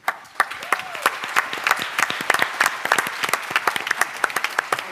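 Audience applauding, many hands clapping; it starts at once and carries on steadily.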